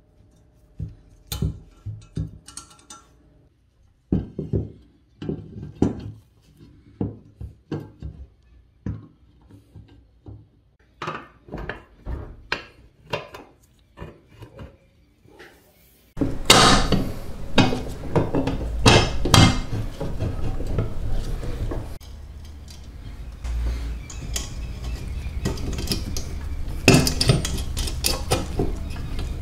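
Small metal parts clicking and clinking under the hands as a reel lawn mower is put back together: a bearing and spring pushed onto the reel shaft, parts fitted into a side plate and a bearing into a wheel hub. About halfway through it turns louder, with a steady background noise under repeated knocks.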